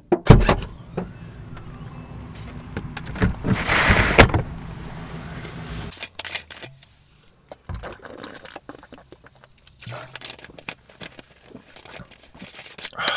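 Handling noises inside a car: sharp clicks and knocks over a low hum, with a short loud hiss about four seconds in. After that come quieter scattered sounds of a plastic water bottle being handled and drunk from.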